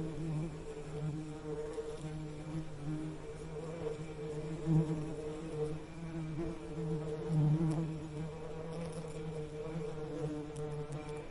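Bees buzzing: a steady low hum that swells and fades a little.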